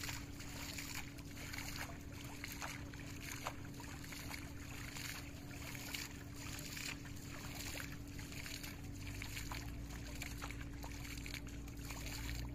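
Irregular splashes of shallow water as a fisherman splashes by hand around his cast net, with a steady low hum underneath.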